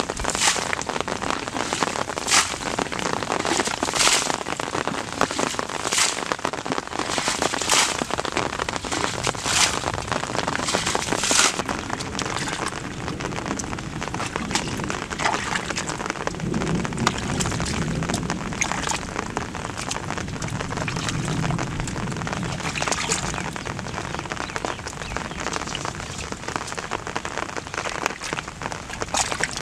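Muddy water splashing: a plastic bucket scoops and throws water out of a flooded rice field about every two seconds, then, from about twelve seconds in, hands slosh and grope through shallow mud and water without a regular beat.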